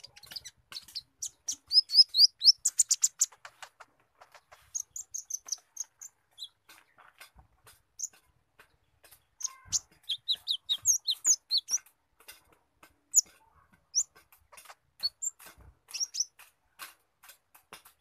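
Caged konin, a sunbird (kolibri ninja), singing: fast runs of short, high, squeaky chirps broken up by rapid dry ticking notes, the squirrel-like calls it has learned. The loudest chirp runs come about two seconds in and again around ten to eleven seconds.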